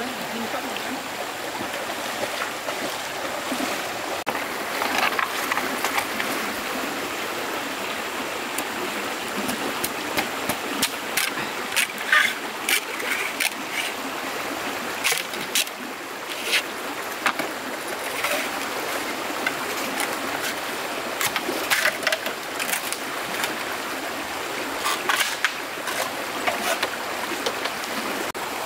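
Stream water running steadily, with irregular sharp splashes and knocks scattered through the middle and latter part.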